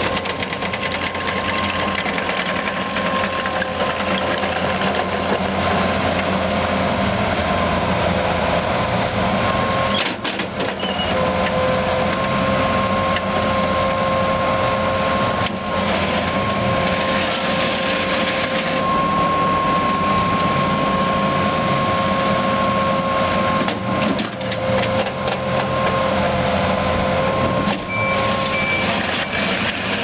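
Takeuchi TL140 track skid steer's three-cylinder diesel engine running steadily as the machine drives and turns, with a steady whine over the engine that dips briefly a few times.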